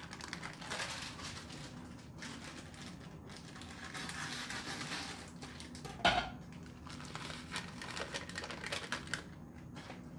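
Foil seasoning sachet of kare-kare mix crinkling and rustling as it is handled and torn open, with one sharp knock about six seconds in.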